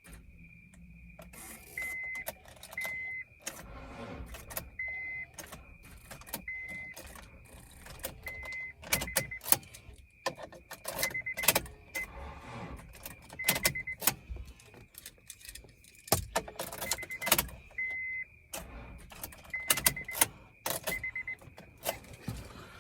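Repeated clicks and rattles with short high beeps every second or two, some of them coming out broken, from a 2009 Honda CR-V whose battery has been run down by a failed alternator.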